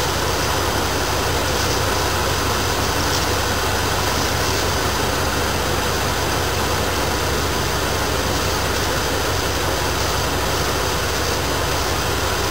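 Dodge Ram van's engine idling steadily under the open hood.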